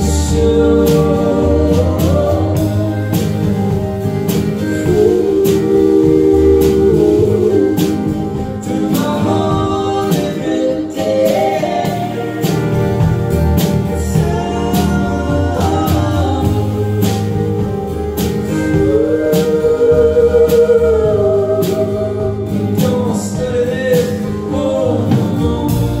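Live band music: strummed acoustic and electric guitars with a steady beat under long sung notes with vibrato.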